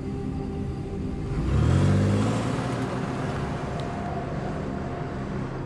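A motor vehicle's engine swells as it passes, its pitch dropping about a second and a half in and then fading slowly, over a steady low hum.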